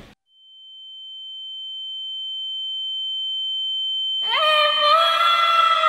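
A steady high-pitched sine tone fades in from silence and holds, a ringing effect. About four seconds in a woman screams, a long high scream that rises briefly and then holds its pitch, louder than the tone.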